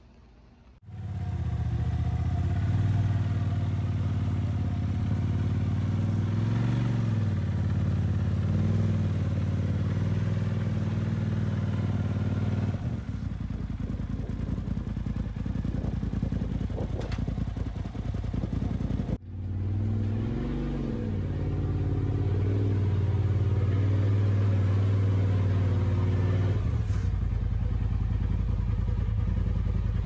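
Polaris RZR Pro XP side-by-side's engine running at low speed with a few short revs, as when creeping it into a trailer's garage. It starts abruptly about a second in and changes character suddenly a few times.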